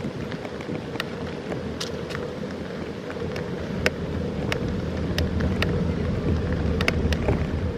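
Bicycle rolling along a paved park path: wind buffeting the microphone and tyre rumble, with scattered sharp clicks, about one or two a second.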